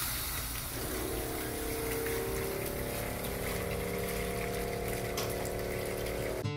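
Water running from a boat's freshwater faucet into a plastic bucket as the system is drained, with a 12-volt pressure pump coming on about a second in and running with a steady hum under the water hiss.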